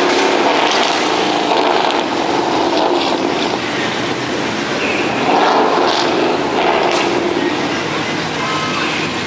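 Engines of several cars running in slow, crawling traffic: a steady engine drone, rising briefly a few times.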